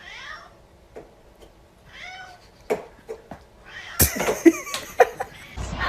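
A cat meowing a few short times, with scattered sharp clicks or knocks, busiest in the last couple of seconds.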